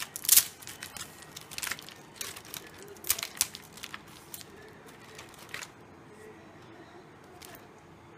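Crisp fried murukku clicking and crackling as a hand lifts and shifts the pieces in a woven basket: a run of sharp irregular cracks over the first six seconds or so, then only a faint click or two.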